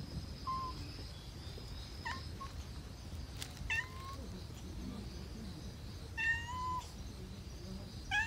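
A cat meowing: a series of short, high meows every one to two seconds, with a longer one about six seconds in.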